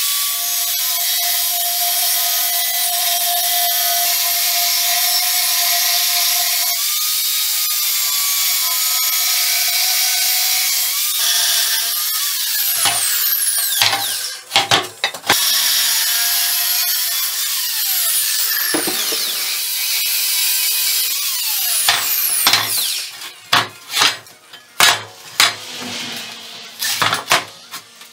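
Large angle grinder cutting through 15 mm thick steel plate, a loud, steady high-pitched grinding. It stops and starts again a few times, its pitch falling each time it spins down, and near the end sharp knocks and clanks of the steel plate being moved come between short bursts of the grinder.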